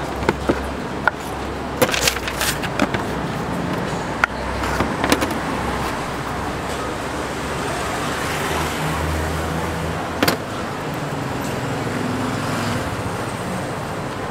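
Street traffic with a steady low engine hum. A run of sharp knocks in the first five seconds or so comes from a knife chopping through roti onto a wooden cutting board, and a single knock follows about ten seconds in.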